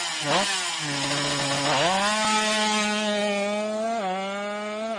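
Small engine of a stripped-down drag motorcycle revving in quick blips, then rising in pitch and holding a high, steady rev as the bike pulls away, with a short dip in pitch about four seconds in.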